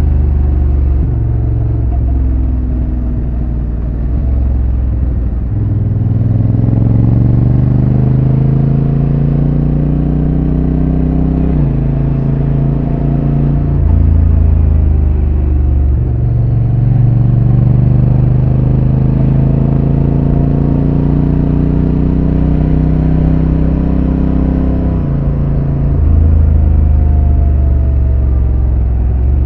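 Honda NT1100's 1084 cc parallel-twin engine, through its stock exhaust, pulling on the move: the revs climb steadily, drop sharply at a gear change about a third of the way in, climb again and drop at another shift near the end.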